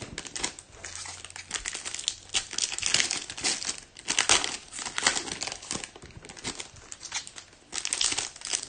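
Trading card pack wrappers from 2021 Topps Pro Debut packs crinkling and tearing as the packs are handled and opened, in an irregular run of rustles.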